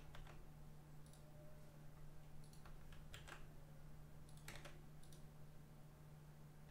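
Faint computer keyboard keystrokes and mouse clicks, coming in small scattered groups over a faint steady low hum.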